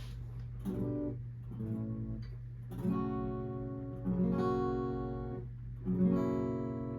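Guitar chords strummed one at a time, five in all, each left to ring and fade, over a steady low hum.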